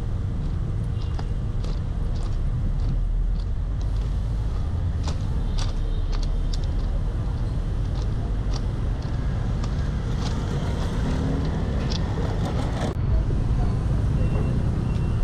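Steady rumble of city street traffic with motorbikes, and irregular crunching footsteps on railway track gravel.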